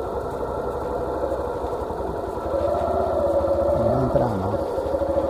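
Motorcycle engine running steadily at low speed with an even low pulse, getting a little louder about halfway through.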